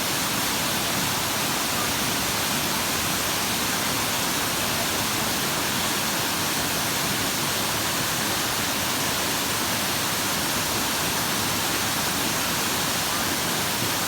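Waterfall: the steady, unbroken noise of falling water.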